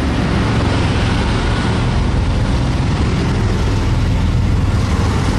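Steady, loud road traffic noise with a low engine rumble.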